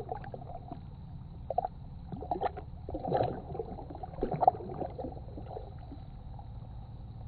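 A hand swishing and splashing in calm water at a kayak's side as a small fish is let go: irregular splashes and sloshes, loudest about three to four and a half seconds in, over a steady low rumble.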